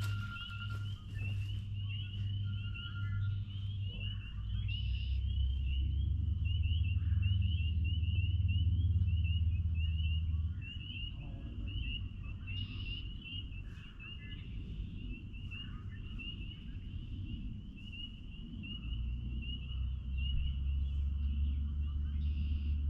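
Chorus of spring peepers: many high, short rising peeps overlapping into a continuous shrill trill, with a few other brief calls over it. Beneath it a low steady hum eases off about ten seconds in and comes back near the end.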